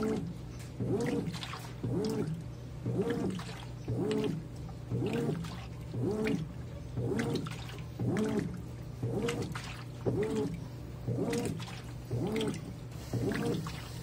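Consul 13 kg top-load washing machine agitating a load of towels on its delicate agitation setting: water sloshing with each stroke of the agitator, about one stroke a second, over a steady motor hum.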